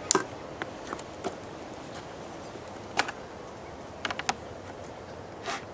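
Scattered clicks and knocks from a roof-rack snowboard carrier being handled and its clamp worked by hand: a sharp click at the start, another about three seconds in, and a quick run of four clicks about a second later, over a steady hiss.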